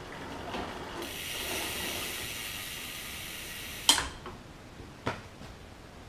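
Bicycle crank turned by hand on a repair stand, the chain and free-spinning rear wheel running with a steady whirring hiss, cut off by a sharp click about four seconds in and a lighter click a second later.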